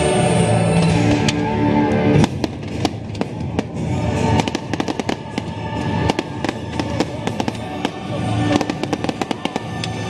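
Fireworks show: loud orchestral show music, which drops away suddenly about two seconds in, then many rapid, irregular pops and crackles from bursting fireworks over quieter music.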